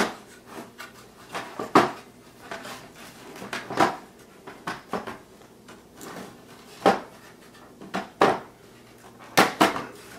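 Plastic snap catches on the back cover of a 2003 Chevrolet Suburban instrument cluster being pried loose by hand, one after another, with the plastic housing knocking against a wooden tabletop. The result is a string of irregular sharp clicks and snaps, the loudest at the start and about two seconds in, with a quick pair near the end.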